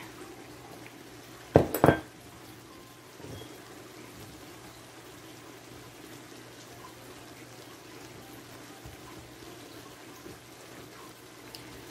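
Pan of ground venison with diced potatoes and carrots simmering, a faint steady bubbling hiss. Two sharp knocks come close together about a second and a half in.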